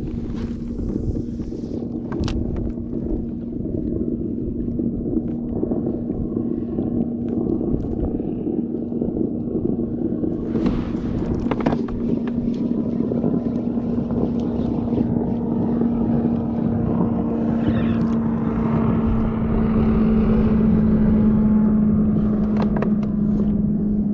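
A boat motor running steadily, with a constant hum over a low rumble that grows louder about three-quarters of the way through, plus a few short knocks and some wind on the microphone.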